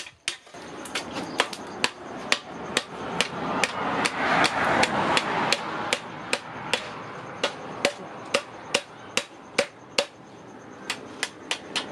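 Hand hammer striking hot steel on a post anvil in quick, regular blows, about two a second, rolling a cleaver blade's tang into a tubular socket handle. A steady rushing noise runs underneath, loudest a few seconds in.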